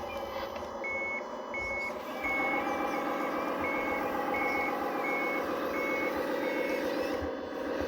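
Reversing beeper on a scale RC construction machine: a regular series of short high beeps, about one and a half a second, starting about a second in and stopping near the end. Under it runs the steady whine of the model's electric drive and hydraulic pump.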